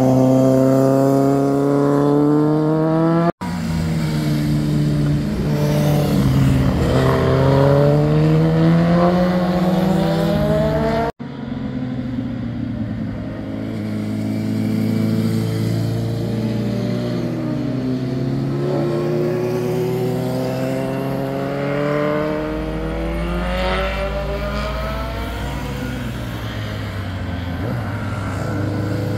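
Motorcycle engines passing one after another through a hairpin bend, each engine note falling and rising in pitch as the bike goes by. The sound cuts off abruptly twice, about three and eleven seconds in. Near the middle two engines are heard at once.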